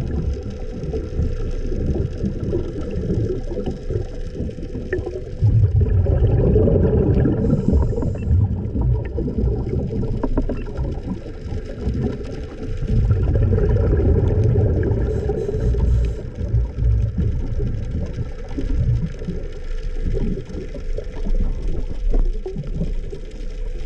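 Underwater noise picked up by a submerged camera along a ship's hull: a low rumble with a faint steady hum, swelling louder for a few seconds about six seconds in and again about thirteen seconds in.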